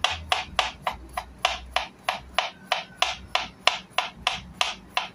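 Kitchen knife slicing garlic cloves thinly on a cutting board: an even run of knife taps on the board, about three or four a second.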